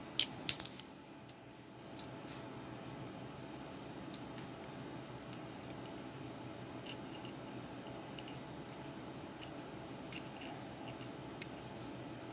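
A few sharp clicks and ticks, a cluster of them in the first second and single ones about two seconds in and near ten seconds, over a steady low background hum.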